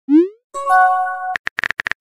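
Texting-app sound effects: a short rising swoosh as a chat message is sent, then a brief electronic chime of a few held tones. About a second and a half in, a fast run of keyboard tap clicks begins as the next message is typed.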